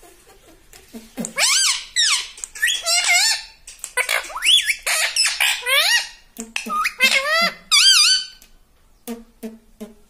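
Indian ringneck parakeet calling and chattering in high-pitched, swooping notes, a run of squawky speech-like sounds of the kind a talking parrot makes when mimicking words. The calls start about a second in and stop at about eight seconds, followed by a few short clicks.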